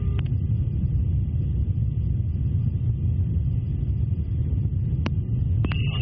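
Steady low rumble of background noise on a radio or interphone channel, with faint steady hum tones, and two short clicks about five seconds in.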